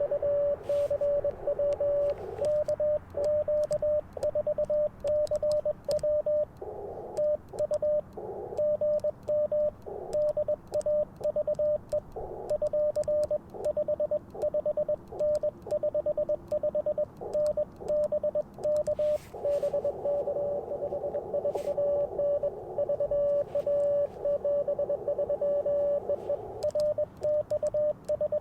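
Morse code (CW) from an Icom IC-705 transceiver: a single steady mid-pitched tone keyed on and off in rapid dots and dashes. Two stretches, at the start and from about two-thirds through, carry a narrow hiss of band noise under the tones.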